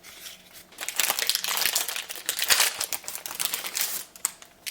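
A trading-card booster pack's wrapper being opened and crinkled by hand: dense crackling that starts about a second in and dies away near the end.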